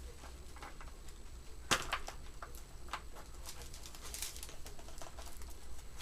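Scattered small clicks and rustles of objects being handled, with one sharper click about two seconds in, over a steady low hum.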